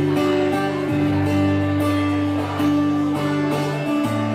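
Acoustic guitar playing an instrumental passage, with held notes and chord changes every second or so.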